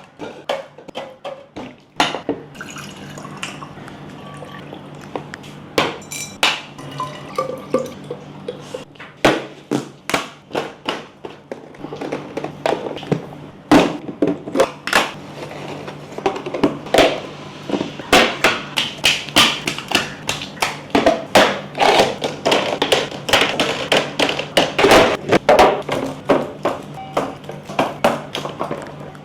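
Hard plastic and glass items clicking, tapping and knocking as they are set into and against plastic fridge organizer bins. The knocks come thick and fast from about halfway on, over a steady low hum.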